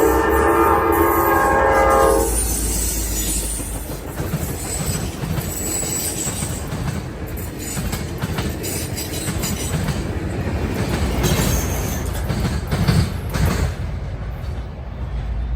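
Amtrak Piedmont passenger train's locomotive horn sounding a chord of several tones, cutting off about two seconds in; then the train rolls through with a rumble and its wheels clicking over the rail joints.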